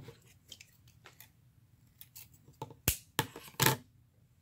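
Sharp clicks and snips of hands working a piece of craft wire, with a cluster of louder clicks about three seconds in.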